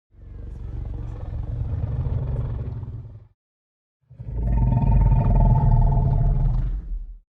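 Two roars of the Red Bluster, a giant red sea-monster creature sound effect. The first lasts about three seconds; after a second of silence a second, louder roar follows, with a deep rumble under a held higher tone.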